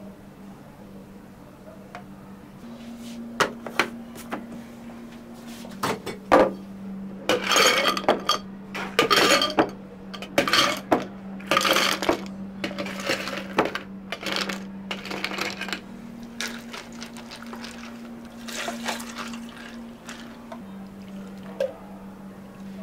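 A barista making a drink: cups and utensils clinking and liquid being poured, busiest through the middle, over a steady low hum from the cafe equipment.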